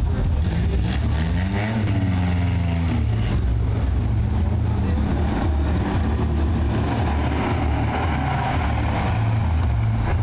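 Nissan sports car engines (S13 200SX/240SX and a 100NX) pulling away one after another at low speed, with a steady low engine drone. One engine revs up briefly about two seconds in.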